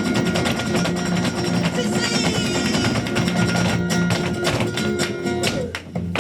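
Flamenco fandango: guitar playing under rapid, dense percussive strikes that drive the rhythm. The strikes build to a brief drop and one sharp closing accent near the end.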